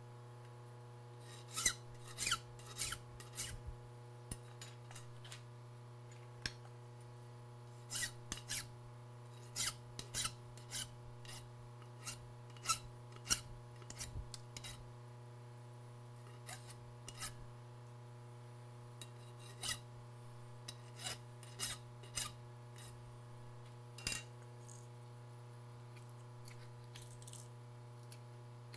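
Hand file scraping along the edges of a small machined metal part to deburr it, in short runs of quick strokes with pauses between, over a steady low hum.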